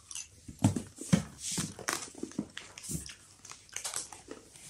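Scattered light clicks and soft knocks of handling while eating, with a couple of short low thuds about a second in and near three seconds.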